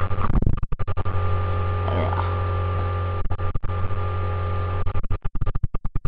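Music picked up by a low-quality webcam microphone under a loud, steady low electrical hum. The sound briefly cuts out many times in quick succession about a second in and again near the end.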